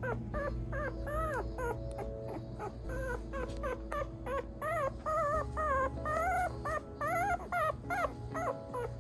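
Newborn whippet puppies squeaking and whimpering: short cries that rise and fall in pitch, several a second, overlapping through the whole stretch.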